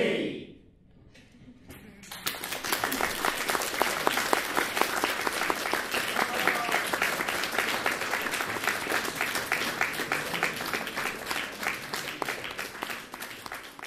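A male shouting choir's final shout cuts off, and after a short hush the audience breaks into applause about two seconds in. The clapping stays dense and steady, then thins out near the end.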